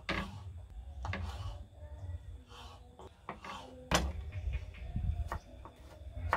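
Kitchen knife cutting meatballs and then a garlic clove on a wooden chopping board: irregular knocks of the blade against the board, with one sharp knock just before four seconds in.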